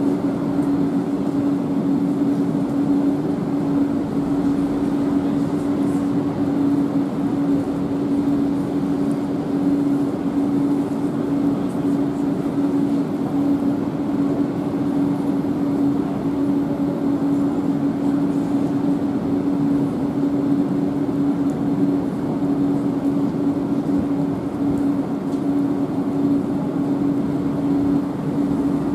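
Railway station sound: a steady, unchanging electric hum over a constant rushing rumble as a double-deck regional train moves off along the tracks.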